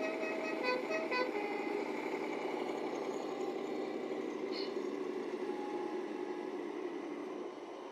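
Electronic sound module of a 1/14 scale RC semi truck playing a steady diesel engine running sound through its small speaker. In about the first second it gives a few short horn notes of changing pitch.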